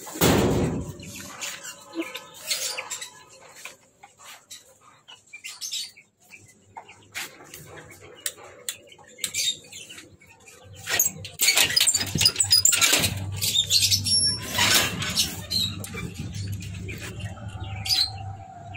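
Rusty metal coop door being unlatched and handled: scattered clattering knocks, with a louder thump as it starts to open. Birds flap and chirp throughout, with a denser burst of rustling about two-thirds of the way through.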